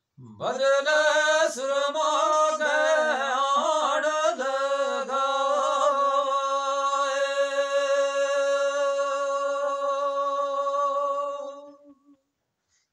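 A man singing unaccompanied: an ornamented, wavering line for the first few seconds, then one long held note of about five seconds that fades out shortly before the end.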